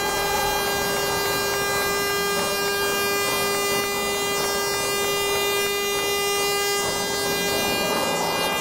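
Crowd applauding, under a steady buzzing tone that runs throughout.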